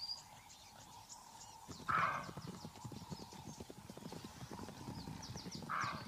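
Impala hooves clattering in a rapid, dense patter on dry ground from about two seconds in, with a short loud call or snort about two seconds in and another near the end. Faint high chirps sound over it.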